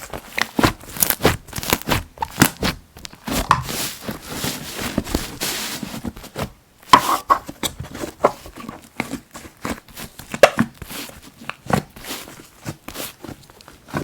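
Slime being squished and stretched by hand: a rapid, irregular run of sticky clicks, pops and crackles, with a smoother hiss of sliding slime about four to six seconds in.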